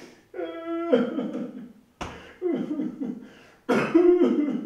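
A man crying aloud: broken sobbing cries in several bursts, with one held wail about half a second in.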